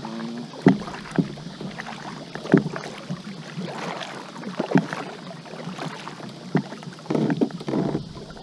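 Double-bladed kayak paddle strokes, the blades dipping and pulling through calm water with short, irregular splashes about every second or two, a busier run of splashing near the end.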